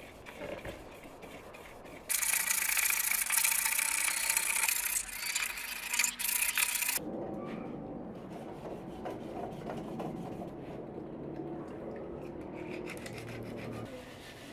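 Hand scrubbing along the rusty metal tubing of an old chair frame: a continuous rasping rub. It is loud and hissy from about two seconds in until about seven seconds in, then goes on duller and lower.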